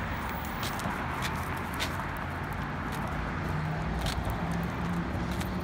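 Car engine running with a low steady rumble, over the rustle of walking and a few light clicks.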